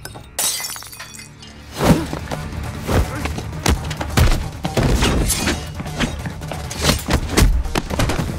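A glass bottle smashing and shattering, with the crash ringing on for about a second, followed from about two seconds in by a fast run of dubbed punch and body-hit impacts over music.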